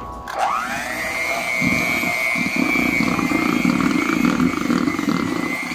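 Electric hand mixer whipping meringue: its motor whines up to speed just after the start, then runs steadily with the beaters churning the stiff meringue, its pitch climbing again at the very end.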